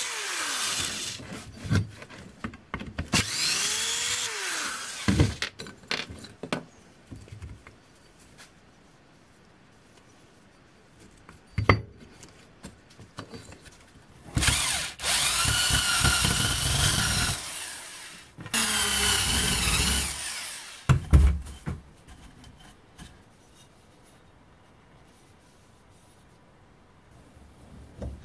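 Handheld electric drill boring into the steel of an old ax head in several bursts, its motor whine rising and falling as it spins up and slows. A few sharp knocks come between the bursts.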